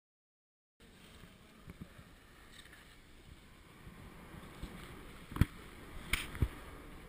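A moment of dead silence, then a faint, steady rushing noise broken by a few sharp knocks, the loudest a little past the middle and two more soon after.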